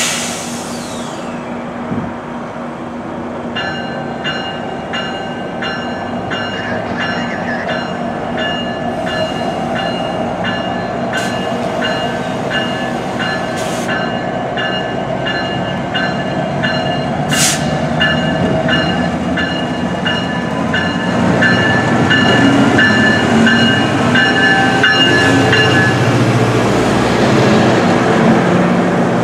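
GO Transit commuter train hauled by an MPI MP40PH-3C diesel locomotive running at low speed, with a warning bell ringing about twice a second over the engine's steady hum. The bell stops near the end. From about two-thirds of the way in, the engine and wheel rumble grow louder as the train passes close.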